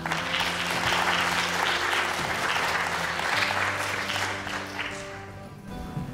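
Audience applause that starts at once and dies away a little before the end, over soft background music with long held notes.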